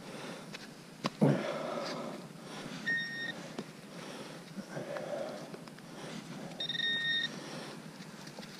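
Metal detector giving two short, steady electronic beeps about three and a half seconds apart, signalling the metal target in the soil being searched. Gloved hands crumble a frozen clod of dirt, with a loud crunching rustle about a second in.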